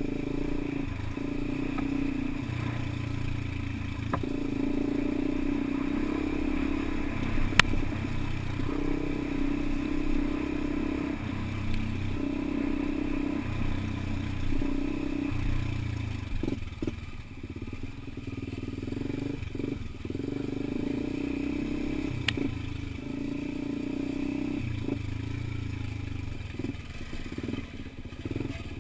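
Dirt bike engine running along a rough dirt trail, its note swelling and dropping every second or two as the throttle opens and closes, with rattling from the bumps. Two sharp knocks stand out, about a third of the way in and again past the middle.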